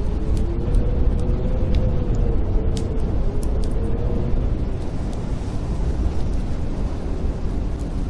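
Snowstorm wind howling with a deep steady rumble and a faint whistle that wavers up and down, over the scattered sharp crackles of a wood fire in a fireplace.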